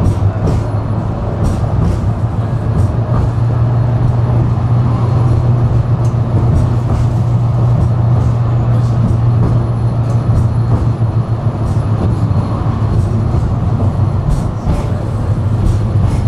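Tram running along its rails: a steady low rumble with scattered faint clicks.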